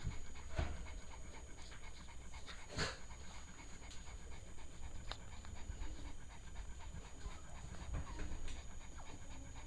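A dog panting steadily, with a few knocks from handling, the strongest about three seconds in.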